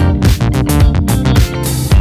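Instrumental background music with a steady beat and sustained bass notes.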